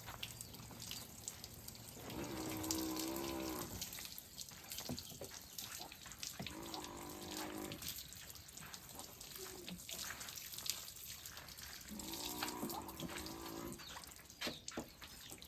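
Water running from a hose and splashing while a car is being washed, with cattle mooing three times, each call lasting one to two seconds.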